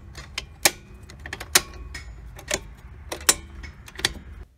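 Circuit breakers in a Stab-Lok breaker panel being snapped back on one by one, restoring power to the house. Sharp plastic clicks come about once a second, with fainter clicks between.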